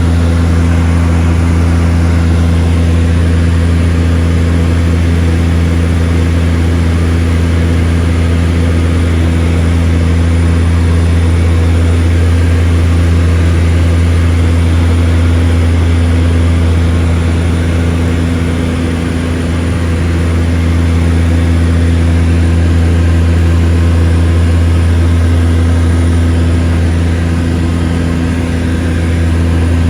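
Seaplane engines droning steadily in flight, a deep even hum that dips slightly in level twice.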